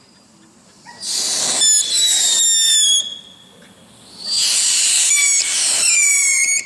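Brothers 'Krazy Klock' firework misfiring, sending out two long shrill whistles with hiss, each about two seconds, the first about a second in and the second about four seconds in, both dropping slightly in pitch.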